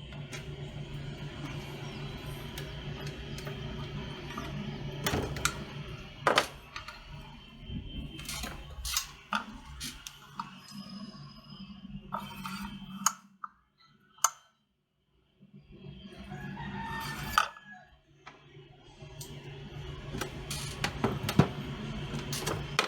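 Scattered sharp metal clicks and knocks as a circular saw's blade bolt, washers and parts are handled and tightened, over a steady low hum.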